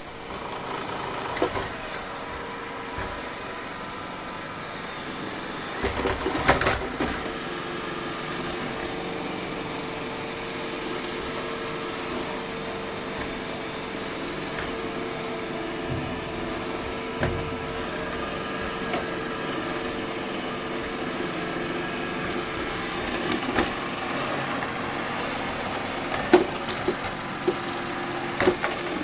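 Roomba i7+ robot vacuum running, its motor giving a steady whir with a constant hum. Short clusters of sharp knocks and clatter break in, loudest about six seconds in and again near the end, as it bumps and climbs over the legs of a clotheshorse.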